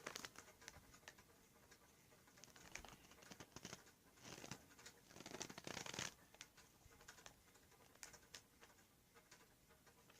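Faint scraping, clicking and soft rustling of a cornstarch-and-shampoo slime mixture being stirred and worked in a cup, with a couple of longer soft swishes about halfway through.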